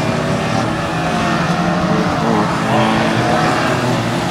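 Banger racing cars' engines running around the track, with one engine revving up about three seconds in as a car comes round the bend.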